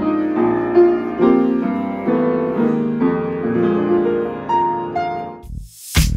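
Upright piano played by hand, a run of chords and melody that stops about five and a half seconds in. Loud electronic drum beats with heavy bass cut in near the end.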